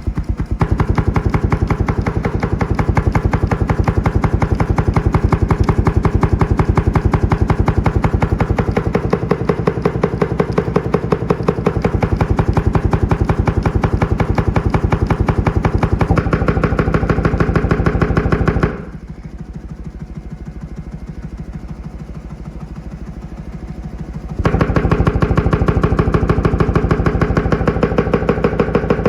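Car subwoofer out of its box, driven by a very low test tone from a frequency generator so its cone moves to maximum excursion, giving a loud, rapid train of pulsing thumps and buzz. About two-thirds of the way through it drops much quieter for several seconds, then comes back up loud.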